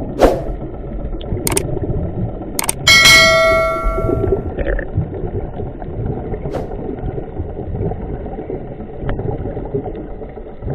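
Underwater sound picked up by a submerged camera: a steady muffled rumble of moving water, a few sharp clicks, and about three seconds in a metallic clang that rings on for about a second.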